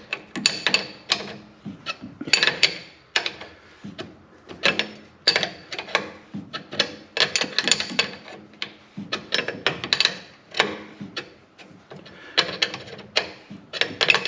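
Ratchet wrench clicking in short repeated strokes, about one to two a second, with a couple of brief pauses, as a fitting is tightened.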